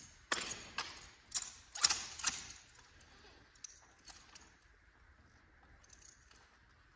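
Drill rifles being worked through the manual of arms: a quick series of sharp slaps and clacks as hands strike the rifles, about six in the first two and a half seconds, then a few fainter ones, echoing in a gymnasium.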